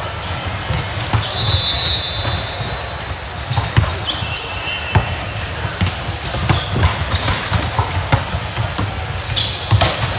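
Volleyball gym din: volleyballs being hit and bouncing off the court floor as scattered sharp knocks, over a steady murmur of voices in a large echoing hall. Two short high squeaks come about 1.5 s and 4 s in.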